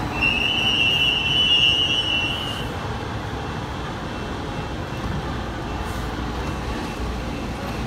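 LA Metro Gold Line light rail train standing at the platform with its equipment running, a steady rumbling hum. About a quarter second in comes a high, steady electronic tone that lasts about two and a half seconds.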